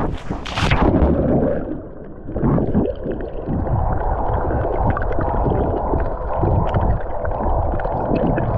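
A splash as a swimmer dives into the sea, then muffled underwater rumbling and gurgling of churned water and bubbles, heard from below the surface, with small bubble pops scattered through it.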